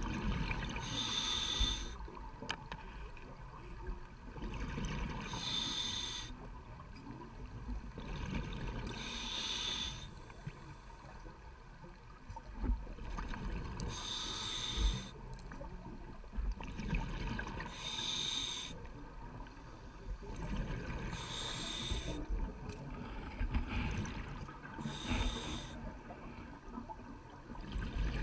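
A scuba diver breathing through a regulator underwater: regular breaths about every four seconds, each a short hiss, followed by bubbling between breaths.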